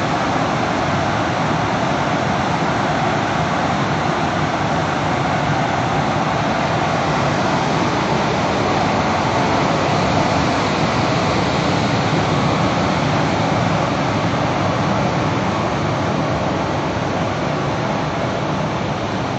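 TEPO-AUTO TP-1201-1 tunnel car wash machine running, its swinging curtain of cloth strips brushing over a car: a loud, steady mechanical noise that holds even throughout.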